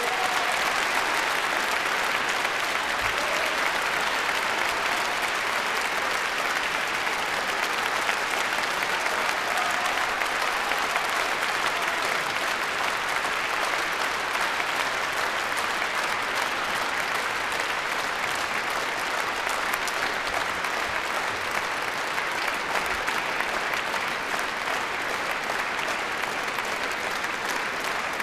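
Concert-hall audience applauding, a dense, steady clapping that holds throughout.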